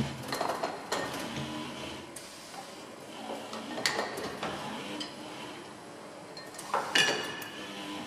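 Crockery and cutlery clinking and clattering as a robot arm lifts plates, bowls and cutlery off trays and sets them into dishwasher racks, with short low motor hums between the handlings. The loudest clatter comes about seven seconds in.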